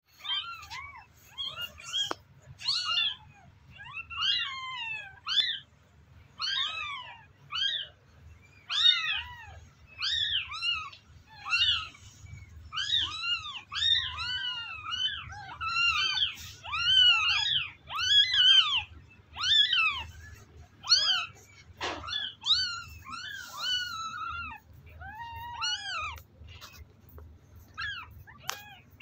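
Several very young kittens mewing over and over: short, high-pitched calls that rise and fall, one after another and often overlapping.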